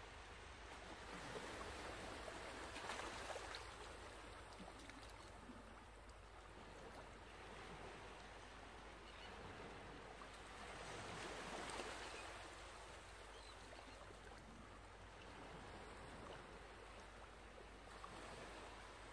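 Faint rustling of fabric being handled as a denim bag and its lining are fitted together and pinned, swelling a little about three seconds in and again around twelve seconds.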